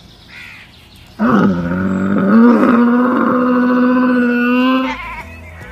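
Dromedary camel giving one long, loud call about a second in. It wavers at first, then holds a steady pitch for a few seconds and stops before the end.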